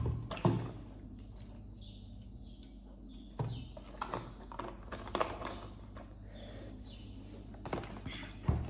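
Scattered light knocks and taps of table handling while eating: a juice carton being moved and set down and a fork on a plate, over a faint low steady hum.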